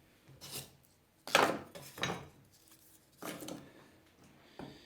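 Sheet-metal bottom panel of a Kenwood KA-4010 amplifier being handled on a workbench after straightening: about five short rubbing and scraping sounds, the loudest about a second and a half in.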